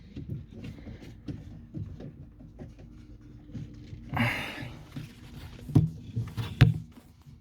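Faint handling noises: a breathy exhale about four seconds in, then two sharp clicks or knocks near the end.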